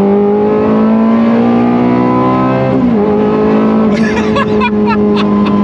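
Ferrari 360's 3.6-litre V8 accelerating hard after a three-gear downshift, heard from inside the cabin: the revs climb steadily, drop sharply at a gear change about three seconds in, then pull high again.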